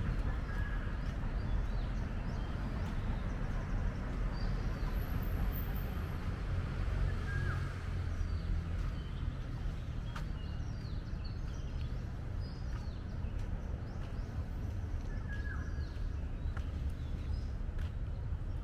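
Steady low rumble of city traffic, with short bird chirps now and then.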